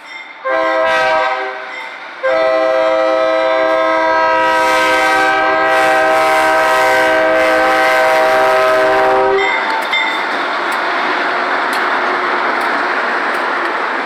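Diesel locomotive air horn sounding the end of a grade-crossing signal, a short blast then one long steady blast held for about seven seconds until it cuts off. Then the GE B23-7 locomotives and tank cars rumble past close by with wheel clatter.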